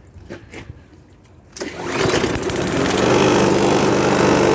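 Bolens 500E lawn mower's 140cc Briggs & Stratton engine starting about a second and a half in, after a few light clicks and knocks, then running steadily at full speed on its freshly cleaned carburetor.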